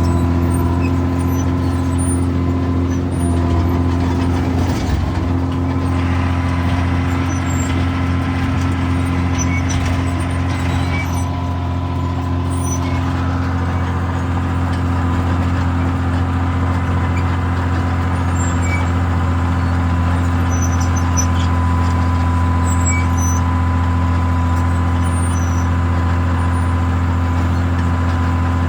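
Caterpillar D4C bulldozer's diesel engine running steadily under throttle, with a thin steady whine above the engine note.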